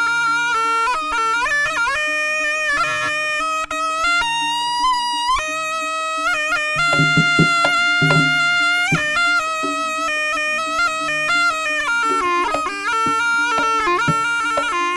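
Jaranan gamelan music led by a slompret, the reedy Javanese shawm, playing a winding, ornamented melody over a steady held low note, with a few drum strokes about halfway through.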